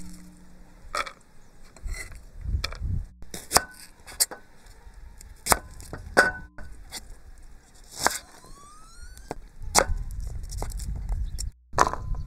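Kitchen knife cutting onion on a wooden chopping board: sharp knocks of the blade against the board at an uneven pace, with softer handling sounds between.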